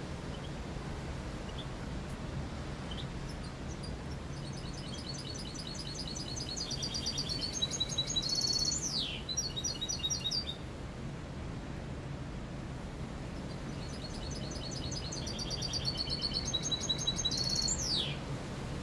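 Caged mixto, a finch × canary hybrid, singing clean song: two phrases of rapid high trills, each ending in a quick downward sweep. A steady low hum lies underneath.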